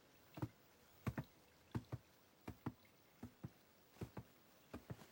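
Footsteps of two people walking at an easy pace: sharp, separate steps in a loose rhythm, some falling in close pairs where the two walkers are out of step.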